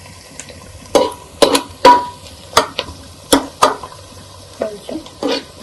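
Metal spoon stirring sliced onions frying in oil in a nonstick pot: about ten irregular knocks and scrapes of the spoon against the pot over a faint steady sizzle. The onions, with bay leaves and whole spices, are still browning.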